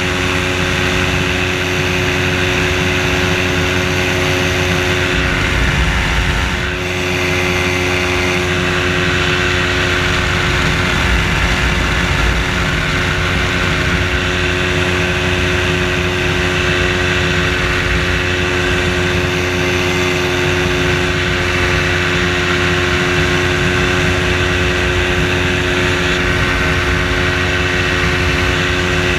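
Engine and propeller of a float-equipped weight-shift microlight trike droning steadily in flight. There is a brief slight dip in loudness about seven seconds in.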